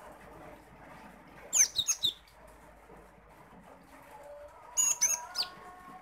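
Cinereous tit (gelatik batu) calling in two short bursts of sharp, high, quickly falling notes, one about a second and a half in and another about five seconds in.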